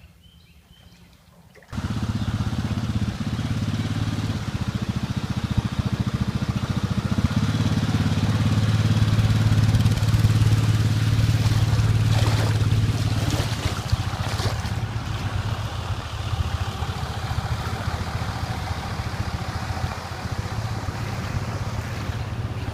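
An engine running steadily with a low drone, cutting in suddenly about two seconds in.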